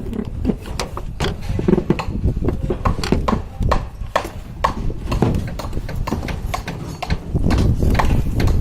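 Irregular knocking and clattering, several sharp hollow taps a second over a low rumble.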